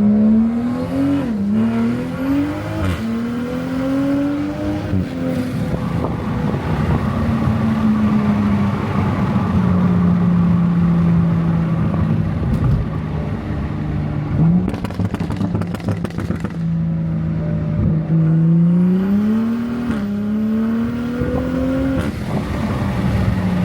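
Toyota Supra MK5's B58 turbocharged straight-six under acceleration: the engine note climbs and drops back at two quick upshifts in the first few seconds, settles into a steady cruise, then climbs through another upshift near the end.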